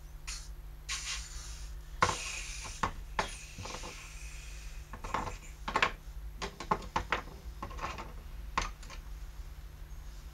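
Light metal clinks, taps and scrapes of hand tools and small metal parts being handled at a bench vise, coming irregularly, with a faint steady low hum underneath.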